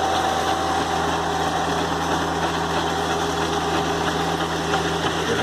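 An engine idling steadily, with a constant low hum and no change in speed.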